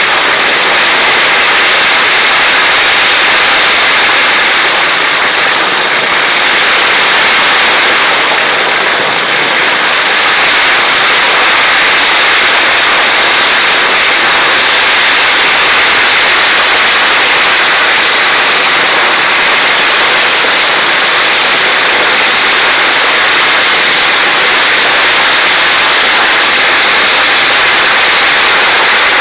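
Ground-level fireworks barrage: firecrackers going off so fast that they merge into one loud, continuous crackle, with no single bang standing out.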